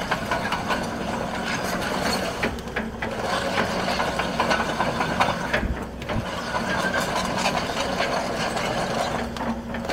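Case CX130B excavator's diesel engine running while the machine pivots on its steel tracks, the track chains and rollers clanking and rattling steadily.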